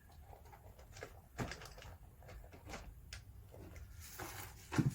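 Kit parts and packaging being handled on a table: scattered light clicks and rustles, with a sharper knock about one and a half seconds in and another near the end.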